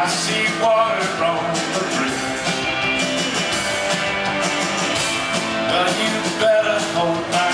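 Live rock band playing loud and steadily, with electric guitar and drums, recorded from among the audience.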